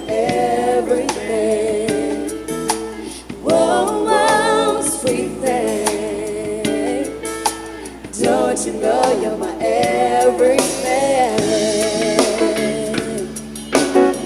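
A soul song with a sung lead vocal, its pitch wavering in vibrato, over backing instruments, played through an Audio-Technica AT-SPG50 compact speaker with its bass boost switched on.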